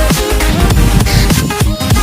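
Loud electronic dance music with a heavy beat and falling bass drops.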